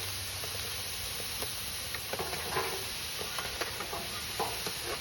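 Frozen shrimp sizzling on a hot grill: a steady hiss, with a few short scrapes and clicks as they are moved around.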